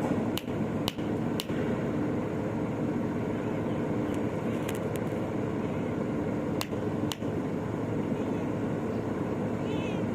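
Steady hum of road traffic, with a few short sharp clicks scattered through it, three in quick succession at the start and a couple more in pairs later.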